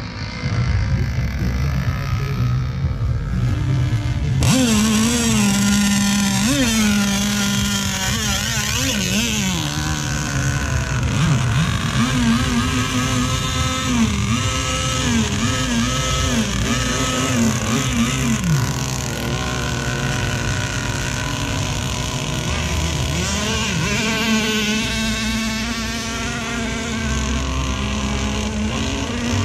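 Engines of radio-controlled racing boats running on the water, their pitch gliding up and down with the throttle. The sound grows louder and busier about four seconds in.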